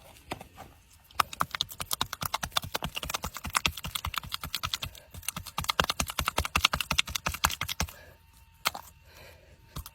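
Hands working in wet, sticky mud and grass roots: a rapid, irregular run of small clicks and crackles that pauses briefly near the end and then starts again.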